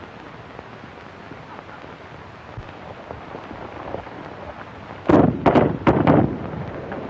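Horses galloping under old film-soundtrack hiss, then about five seconds in a quick volley of about five rifle shots, cracking one after another over a second or so.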